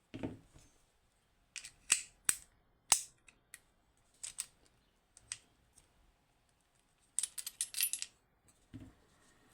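Small metal parts of a Union G110 lever lock clicking and clinking as they are handled and set down, a dozen or so separate sharp clicks with a quick rattle about seven seconds in.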